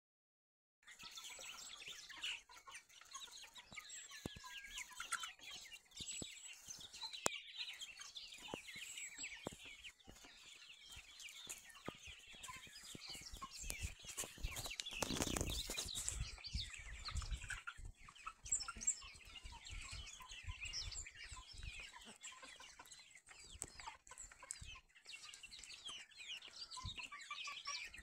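A flock of chickens feeding together, many birds clucking and chirping over one another, with scattered sharp ticks. About halfway through, a louder rush of noise covers the calls for a couple of seconds.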